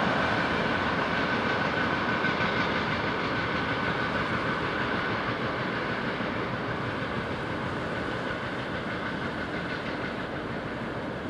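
Container freight train rolling past: a steady rush of steel wheels on rails with a thin high ringing tone, slowly growing quieter. The tone fades away about ten seconds in.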